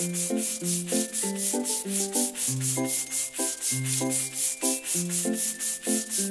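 Cartoon paintbrush sound effect: quick, even brushing swishes, about five a second, over a simple children's tune.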